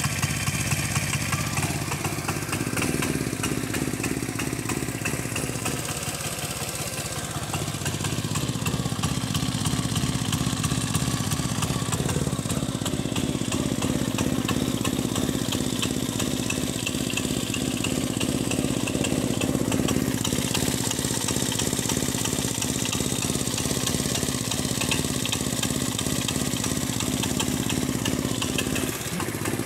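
Kinetic scooter's single-cylinder engine running steadily at a raised idle, its slow-running set high to keep it going after a cold start. It dips briefly about six seconds in, then picks up again.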